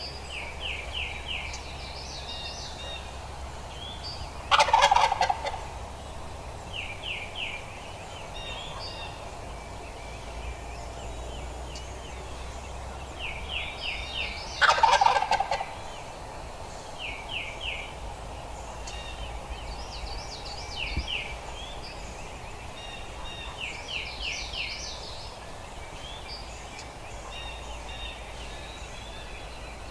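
Wild turkey gobbler gobbling twice, about ten seconds apart. Small birds chirp in short repeated phrases in between.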